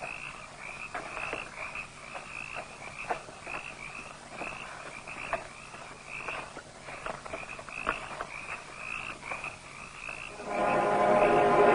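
Frogs croaking in a steady chorus of short calls repeated about three times a second, with faint scattered clicks. Music comes in near the end.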